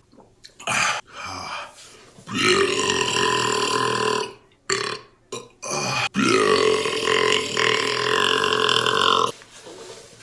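A man belching deliberately: a couple of short belches, then two long, deep belches of about two and three seconds, the second trailing off falling in pitch near the end. A sharp click comes just before the second long belch.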